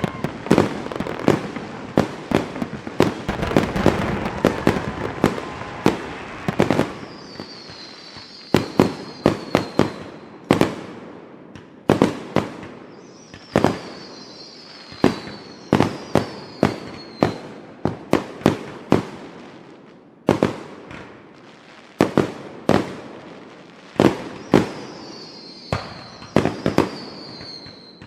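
Fireworks going off: a rapid string of sharp bangs throughout, over a dense rumbling crackle for the first several seconds. Several high whistles falling in pitch sound later on, from about eight seconds in and again near the end.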